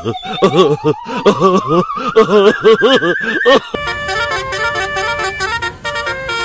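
Electronic cartoon-style sound effects: a wavering tone rises steadily for about four seconds over quick repeated warbling chirps, then cuts off sharply. A melody of steady stepped notes, in the manner of a multi-tone horn tune, follows.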